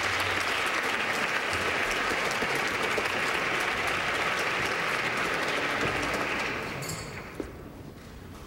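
Audience applauding steadily, dying away about seven seconds in.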